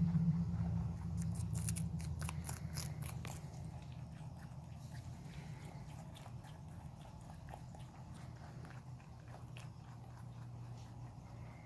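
Pets biting and chewing raw vegetables, with a run of sharp crunches in the first few seconds and quieter scattered chewing clicks after. A steady low hum lies underneath and fades gradually.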